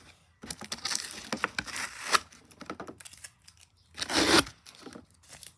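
Packaging being cut and torn open, tape and cardboard ripping with crinkling. The loudest tear comes about four seconds in.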